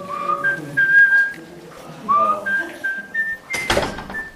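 A person whistling a tune: clear held notes, each about a third to half a second long, stepping between a few pitches, over low background chatter. A brief loud burst of noise, like a rustle or bump, cuts in about three and a half seconds in.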